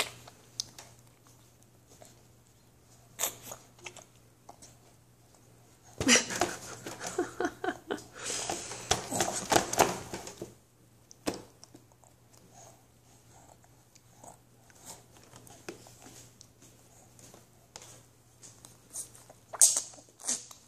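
A baby gumming and sucking on a whole peach: irregular mouth clicks and smacks, with a louder stretch of knocks and rustling from about six to ten seconds in.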